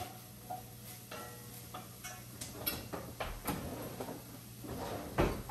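Kitchen cabinet and utensil handling: scattered light clicks and knocks as a lower cabinet pull-out is opened and rummaged, with one louder thump near the end, over a steady low hum.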